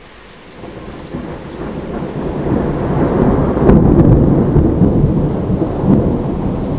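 Thunder: a deep rumble that swells over about three seconds, peaks with a sharp crack about four seconds in, then keeps rolling.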